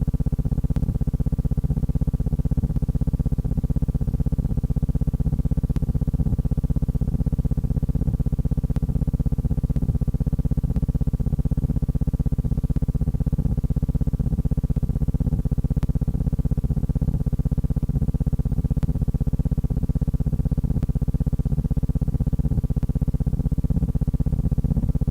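Steady low buzzing hum that runs unchanged, with no other sound over it.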